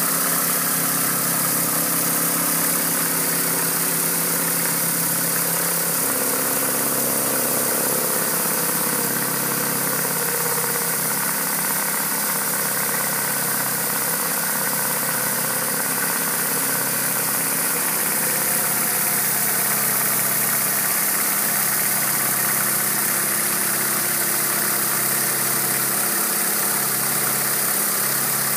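Pressure washer's engine running steadily, with the hiss of water spraying from a rotary surface cleaner onto clay roof tiles. The engine note shifts slightly about six seconds in.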